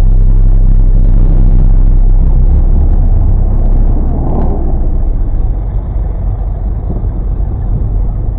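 Car engine running in a steady low rumble at slow rolling speed, heard close up. It eases off a little about halfway through.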